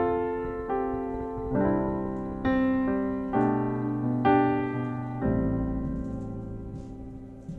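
Background piano music: slow chords and notes struck about once a second, each dying away, the last chord held and fading over a couple of seconds.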